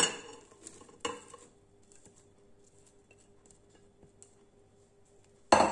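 A sharp knock against a stainless steel mixing bowl about a second in, then faint soft ticks as grated apple is scraped off a plate into the bowl with a wooden spatula, and a louder clatter of utensil against the bowl just at the end.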